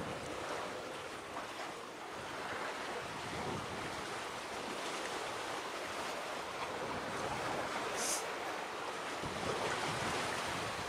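Steady wind and water noise, with wind on the microphone. A brief high hiss comes about eight seconds in.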